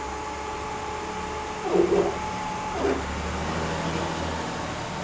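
Stepper motors of a home-built CNC router whining steadily as an axis is driven, with a louder change in pitch about two seconds in and a shift to a lower, steadier tone just before three seconds.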